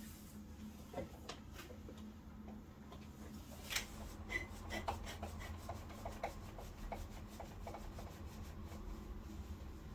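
Hands rubbing and handling the plastic parts of an air-conditioner unit during disassembly, with irregular light clicks and knocks, the sharpest about four seconds in. A steady low hum runs underneath.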